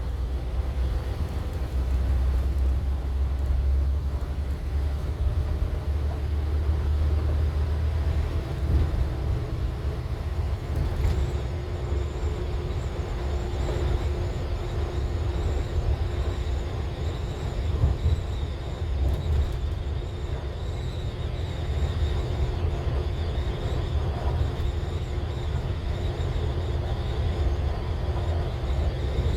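Rail replacement coach running along the road, heard from inside the passenger cabin: a steady low engine and road rumble with a faint high whine that comes in about a third of the way through.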